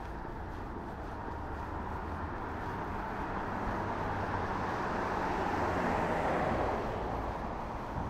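A vehicle passing close by: a rushing noise that builds over several seconds, is loudest about six seconds in, then fades.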